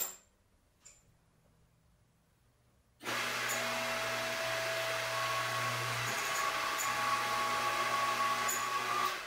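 A light metal click as the tube is set in the vise. After near silence, a steady rushing machine noise with a low hum starts suddenly about three seconds in and carries on with a few faint ticks.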